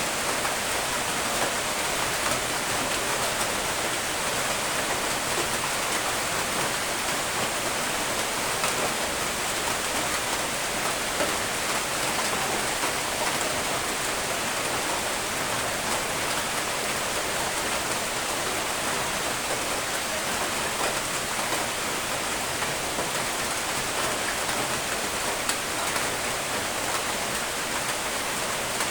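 Steady, even rain falling, a constant hiss of drops with no thunder or other events.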